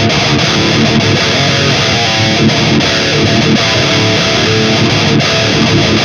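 Electric guitar played with high-gain distortion through a Mooer 005 Brown Sound micro preamp pedal, powered by an ISP Stealth power amp into a 4x12 speaker cabinet. Continuous chords and single-note riffing with shifting notes.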